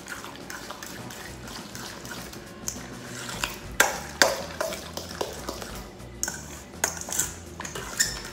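A metal utensil stirring guacamole in a metal mixing bowl: soft scraping with a string of sharp clinks against the bowl, the loudest a pair about four seconds in.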